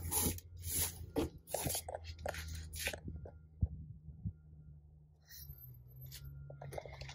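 Rustling and light tapping from handling the phone against the truck's interior trim for about the first three seconds, then quieter, over a steady low hum.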